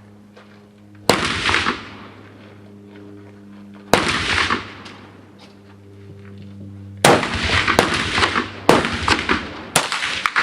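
Rifle shots on an open firing line: one crack about a second in, another about four seconds in, then a quick run of five or so shots from several rifles from about seven seconds on, each with a short echoing tail. A steady low hum runs underneath.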